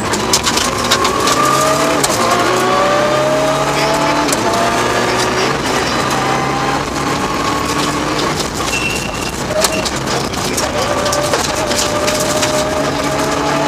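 Mitsubishi Lancer Evo VII rally car's turbocharged four-cylinder engine, heard from inside the cabin under hard acceleration on a stage. Its pitch climbs steadily and drops back several times, with scattered sharp clicks over the engine.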